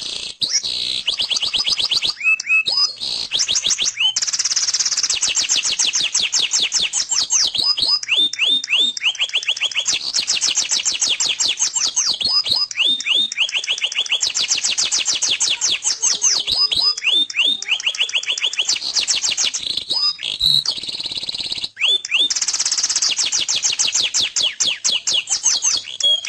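Domestic canary singing a long, continuous song of fast rolling trills: rapid runs of high repeated notes broken by short falling sweeps.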